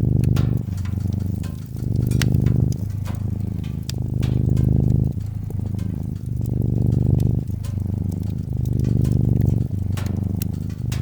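A domestic cat purring deeply and continuously, the purr swelling and easing with each breath about once a second, over scattered sharp crackles and pops from a wood fire.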